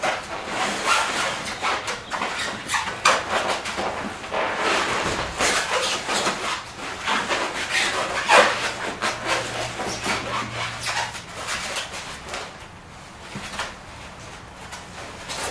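Nylon fabric of a float tube's seat pocket rustling and scraping as a foam seat cushion is jammed and worked into it by hand, in many short, irregular strokes that ease off near the end.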